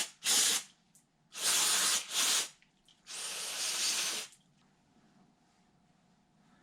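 Aerosol can of assembly lube spraying the camshaft journals of a cylinder head in four hissing bursts. The last burst is the longest and stops about four seconds in.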